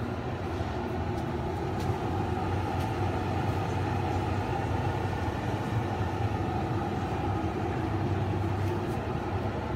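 Steady mechanical hum and whir of a running fan or motor, unchanging throughout, with a few faint clicks.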